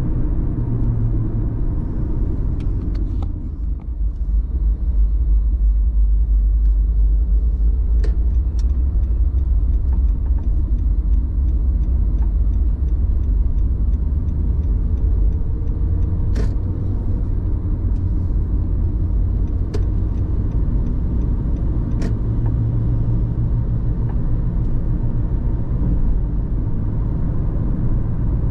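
Car on the move: a steady low rumble of engine and road noise, dipping briefly about four seconds in, with a few sharp clicks scattered through it.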